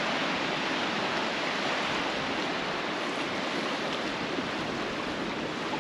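Steady rush of water, an even hiss with no breaks or distinct wave crashes.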